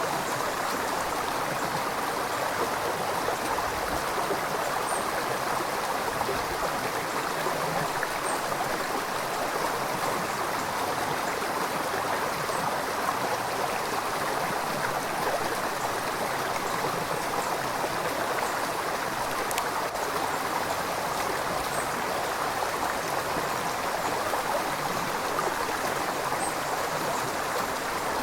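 River water flowing and rushing steadily over rocks, a continuous even splashing.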